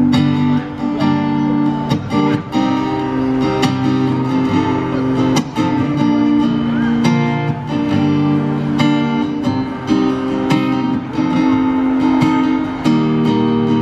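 Live acoustic guitar strummed in a steady rhythm, amplified through PA speakers.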